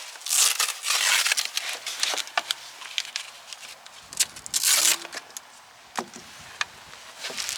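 Bike packaging being handled and pulled off: bursts of crinkling and rustling, with scattered sharp clicks and knocks between them.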